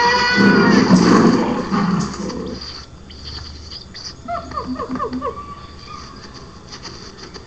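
Agitated zoo animals calling: a loud, long roaring call in the first two seconds, then a quick run of about seven short, falling monkey shrieks about four seconds in.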